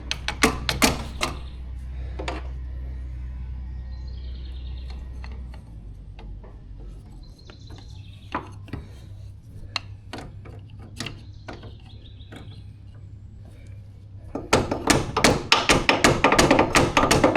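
Metal hand tools knocking, clicking and scraping on a John Deere 445 garden tractor's reverse pedal and its mount as the stuck pedal is worked loose with screwdrivers. Scattered single knocks run through, with a dense stretch of rapid metallic clatter near the end.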